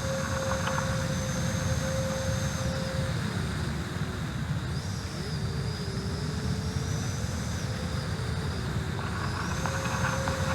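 Radio-controlled electric-ducted-fan jets flying, their fans making a thin whine that dips and rises again with the throttle over a steady rushing rumble.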